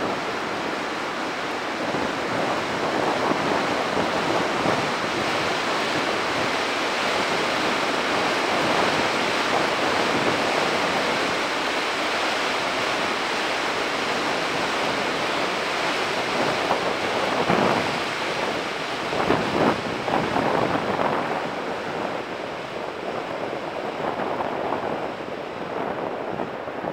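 Steady outdoor rushing noise that swells and eases, with a rougher, gustier stretch about two-thirds of the way through.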